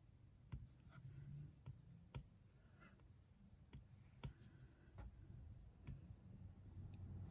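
Faint, irregular taps on a tablet's glass screen, about nine light clicks over a few seconds, as text is entered and items are placed on a digital planner page.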